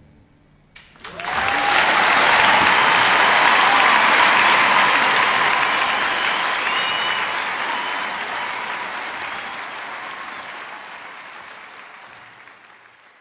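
Crowd applause that starts suddenly about a second in and slowly fades out.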